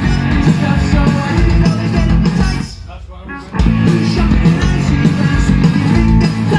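Live rock band playing loud on electric guitars over a steady beat; the band drops out for about a second near the middle, then comes back in at full volume.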